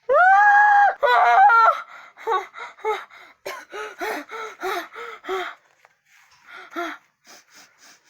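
A person's voice cries out, rising and then held for about a second, then gives a run of short, rhythmic vocal sounds, about three a second, fading out after about five seconds.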